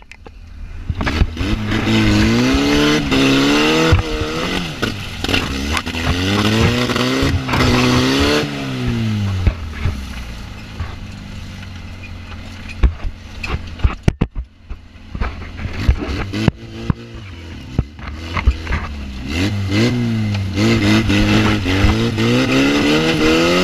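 Off-road cage buggy's engine revving up and down repeatedly. It falls back to a quieter, rougher running through the middle, with a few sharp knocks, then revs up and down again near the end.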